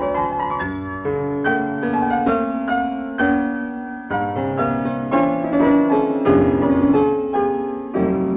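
Solo piano playing a slow melody over held chords and bass notes, new notes struck about twice a second.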